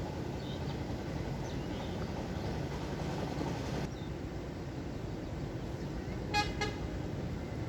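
Water rushing steadily through a sluice gate, a dense low-pitched rush. About six and a half seconds in, a horn gives two short beeps in quick succession.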